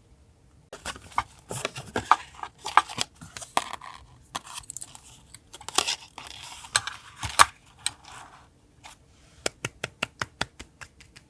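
Paper being handled for a journal collage: rustling, crinkling and sharp taps and clicks, then a quick, even run of small clicks near the end.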